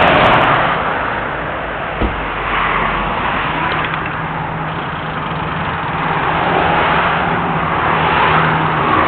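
Highway traffic rushing past, swelling and fading as vehicles go by, with a single dull thump about two seconds in.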